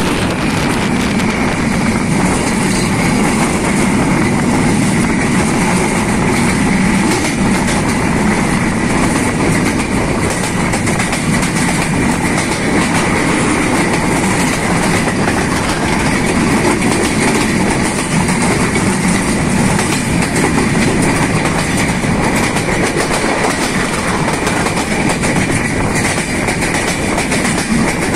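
Passenger train running along the rails, heard from a carriage window: a loud, steady rumble of wheels on track.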